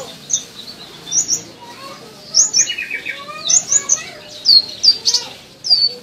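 Purple-throated sunbird singing: sharp, high, down-hooked chirps in quick clusters of two or three, with a short, rapid trill of lower notes about halfway through.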